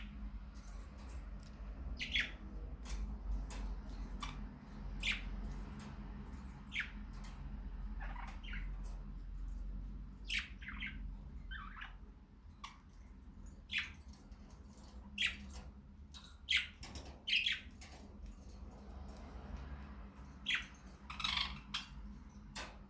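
Pet budgerigars chirping and squawking in short, sharp calls at an irregular pace, over a low background hum.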